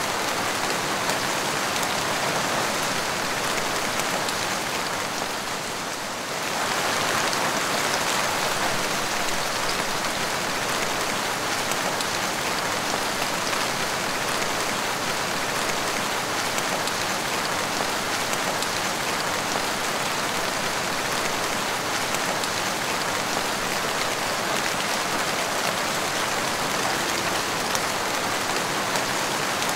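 Steady rain falling on a wet tiled porch floor, many small drops splashing. It eases briefly about six seconds in, then comes back up.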